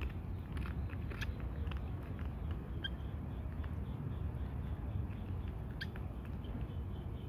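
Cats and kittens chewing dry kibble: scattered sharp crunches over a steady low background rumble, with one brief high chirp about three seconds in.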